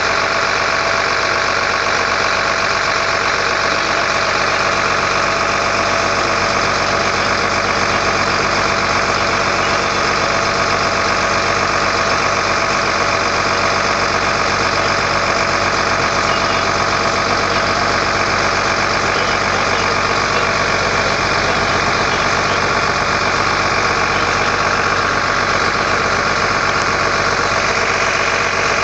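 Engine idling steadily: a constant, unchanging drone made of several steady tones.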